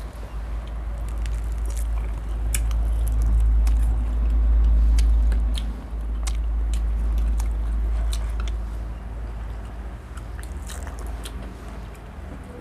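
Close-up eating: chewing and biting with scattered small clicks, over a deep low rumble that swells loudest in the middle.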